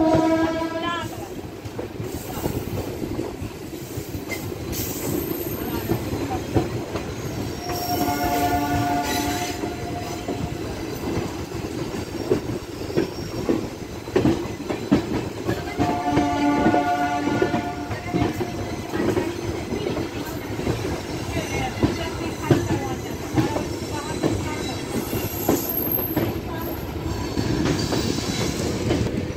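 Indian express train's locomotive horn sounded three times over a departing train: a brief blast at the start, then two blasts of about two seconds each, some eight seconds apart. Between them the wheels clatter steadily over rail joints.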